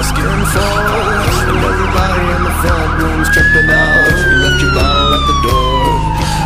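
Fire engine sirens: a fast, repeating rise-and-fall warble, then about three seconds in a siren climbs briefly and winds down in one long falling wail.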